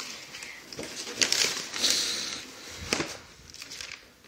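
Wrapping paper crinkling and tearing as a present is unwrapped, in irregular crackly rips and rustles, busiest in the middle with a sharp tear about three seconds in.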